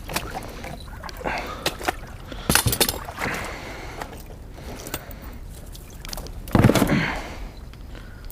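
Knocks and clatter of gear being handled in a small boat, with some water sloshing and splashing; a louder bump comes about six and a half seconds in.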